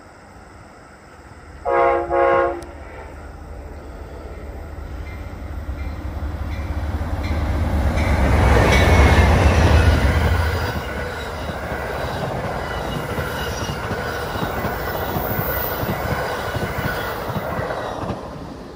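Amtrak passenger train led by a GE P42DC diesel locomotive gives two short horn blasts about two seconds in. It then approaches and passes, its engine rumble swelling to a peak about halfway through as the locomotive goes by. A steady rolling rumble with clickety-clack from the stainless-steel passenger cars follows and drops away near the end.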